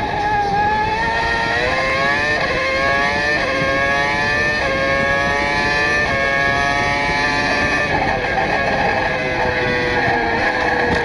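Formula One race car engine at high revs, dubbed in as a sound effect, climbing through several quick upshifts with a short drop in pitch at each change. About eight seconds in the revs ease off and fall, then pick up again near the end.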